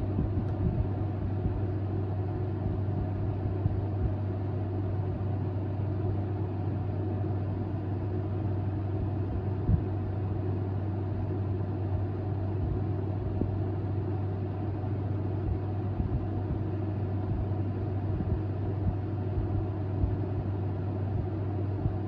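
Perfect Aire window air conditioner running steadily: a deep hum with fan air noise over it.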